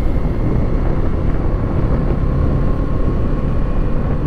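Kawasaki Eliminator 450 SE's parallel-twin engine running steadily while riding, under heavy wind rumble on the microphone.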